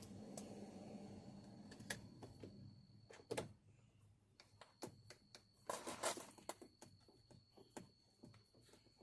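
Scattered light clicks and knocks of a screwdriver and plastic door-trim parts being handled, the loudest a short cluster about six seconds in. A low hum fades out about three seconds in.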